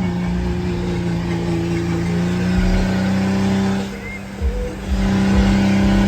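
A car engine held at high revs in a steady drone, dropping off for a moment about four seconds in and then climbing back, with low thumps underneath.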